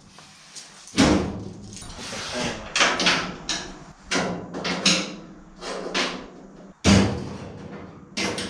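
Hammer blows on sheet steel: about a dozen irregular sharp knocks, each ringing out briefly.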